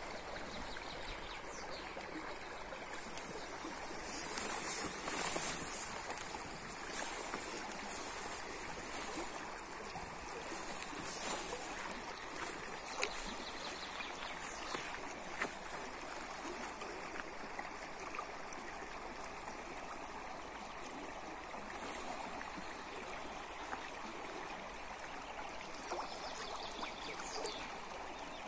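Shallow, fast-flowing river rushing steadily over its stony bed.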